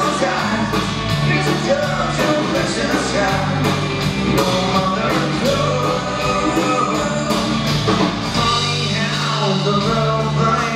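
Live country-rock band playing an instrumental break: electric guitars, electric bass and a drum kit with a steady hi-hat beat.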